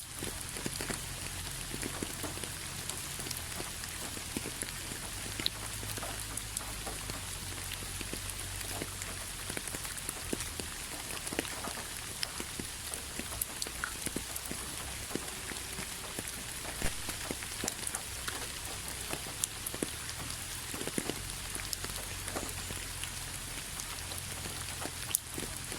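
Steady rain, with individual drops tapping on a surface at irregular moments over a continuous patter.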